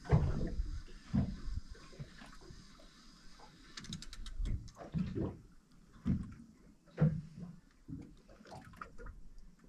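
Water slapping against the hull of a small boat in irregular low thumps, roughly one a second.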